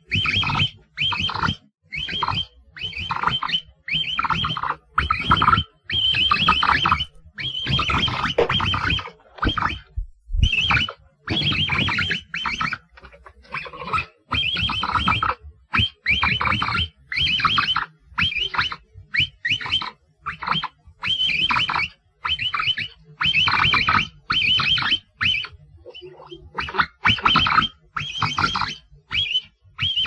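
Capybara calling over and over in short, high-pitched calls, roughly one a second with brief pauses between them.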